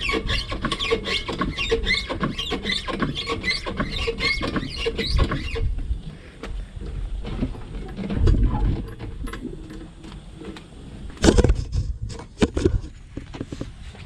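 Rapid repeated metal squeaks over low knocks, a few a second, for about the first six seconds, then scraping and a loud metallic clank about eleven seconds in, from work to pull an engine out of a truck.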